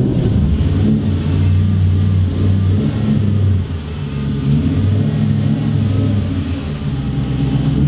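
Compact pickup truck's engine running just after being started, its revs rising and falling a little as the truck moves off slowly.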